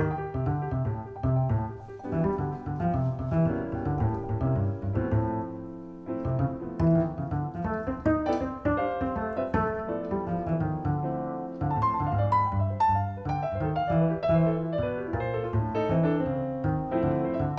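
Background piano music with low bass notes, playing on without a break.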